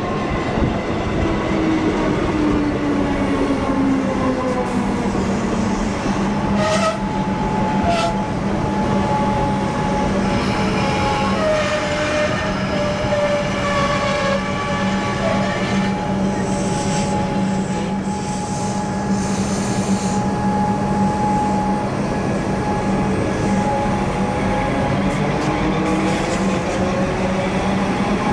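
EDI Comeng electric suburban train at a station: its traction motors whine down in pitch as it slows in, hum steadily beside the platform, then whine up again as it pulls away. There are two short sharp clicks about seven and eight seconds in.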